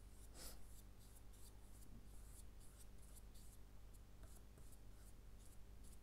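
Faint scratchy strokes of a thin nylon paintbrush dabbing gouache onto paper, about two or three short strokes a second, the first slightly fuller about half a second in.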